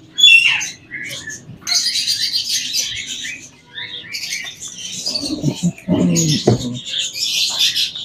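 Many caged small parrots, lovebirds among them, chirping together in a dense chatter of short, high calls.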